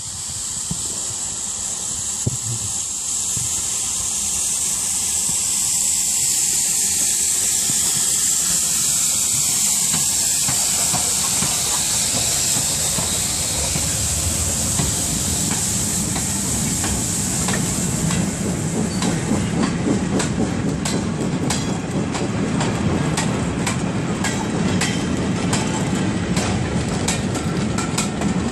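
Steam locomotive running past with a loud steam hiss that swells as it draws level and then fades. After that, the goods wagons rumble by, their wheels clicking quickly and unevenly over the rail joints.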